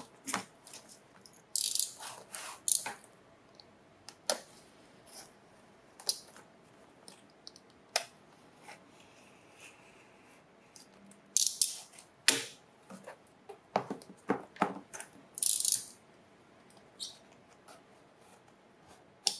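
A cardboard box being handled and its packing tape slit with a utility knife: scattered clicks and taps of the box and blade, with a few short scraping sounds as the blade cuts through the tape.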